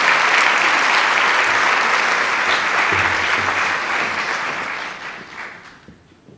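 Large audience applauding, steady at first and dying away over the last couple of seconds.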